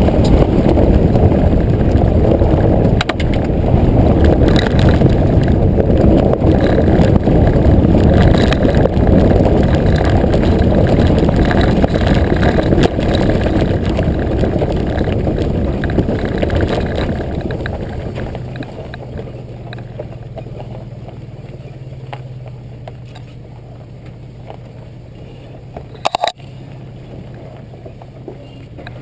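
Nissan Xterra driving off-road, picked up by a camera on its lower rear bumper: a loud rumble of wind buffeting and tyres on the dirt track that eases off about two-thirds of the way through to a quieter, steady low engine hum. A single sharp knock comes near the end.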